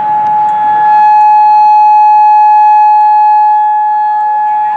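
Outdoor warning siren with stacked horns sounding a loud, steady alert tone at a single fixed pitch, swelling fuller about a second in.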